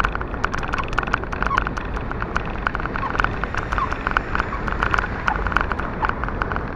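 Riding noise picked up by an action camera mounted on a bicycle: a steady rush of wind on the microphone, with a fast, irregular rattle of clicks as the bike runs over the road.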